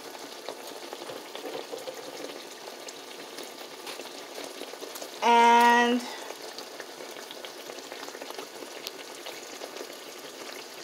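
Pork steaks sizzling in a skillet of melted butter and lemon juice, a steady frying crackle. About five seconds in, a single loud steady tone sounds for just under a second.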